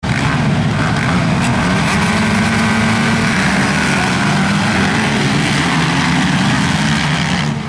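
A full pack of motocross bikes revving hard off the start line and accelerating away together, many engines running at once in a loud, dense blare.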